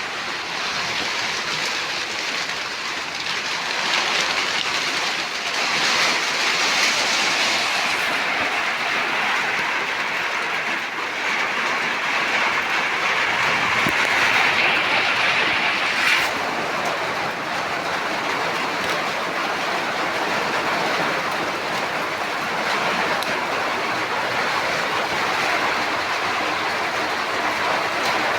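Steady rain falling, an even hiss with no rhythm.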